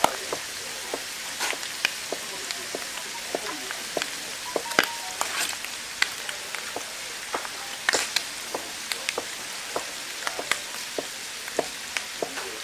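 Kitchen knife slicing through pork offal and tapping on a thick wooden chopping board: a string of short, sharp knocks at an irregular pace, about two or three a second, over a steady hiss.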